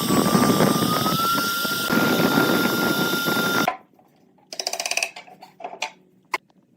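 Woodworking power tool running loud with a steady whine that sags briefly in pitch as it takes the cut, then stops abruptly. A short rasping scrape and a few light knocks of wood follow.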